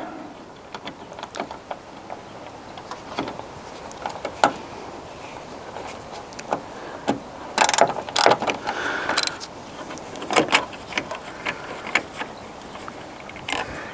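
Hand tools working the two T30 Torx screws out of a bonnet latch: irregular metallic clicks and clinks, busiest about eight and ten and a half seconds in.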